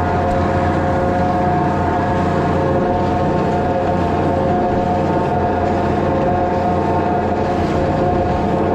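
Farm feeding machinery running steadily: a constant engine hum with a steady whine on top.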